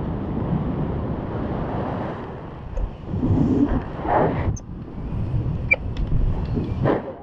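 Wind buffeting an action camera's microphone in paragliding flight: a low rushing rumble that swells and drops in gusts.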